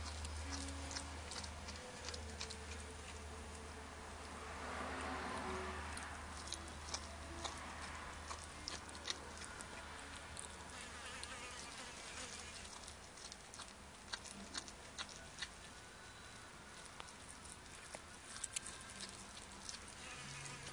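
A cat chewing and eating ham, with irregular sharp clicks and smacks of its mouth on the meat. A low steady hum underneath fades out about halfway through.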